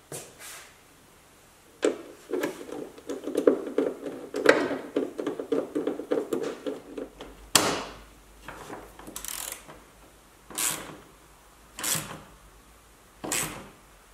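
Hand ratchet clicking as it drives the fender screws into their speed nuts: a fast run of clicks for about five seconds, then five single strokes, one about every second and a half.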